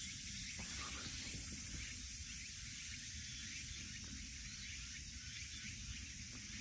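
A steady hiss of background noise, with no distinct calls or knocks standing out.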